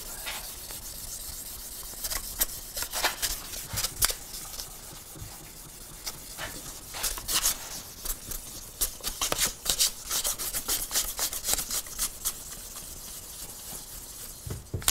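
Abrasive strip pulled back and forth around a chrome motorcycle fork tube, shoeshine-style: a light sanding of the tube, heard as many quick, uneven rubbing strokes.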